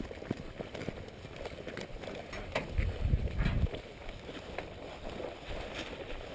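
Footsteps and gear rustling of a player moving on foot, with scattered light clicks and a low buffeting on the microphone about three seconds in.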